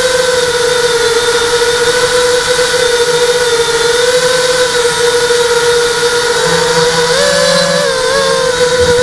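Brushless motors and propellers of a ZMR-frame hexacopter whining steadily, heard from its on-board camera. The pitch rises and wavers briefly about seven seconds in, then settles back.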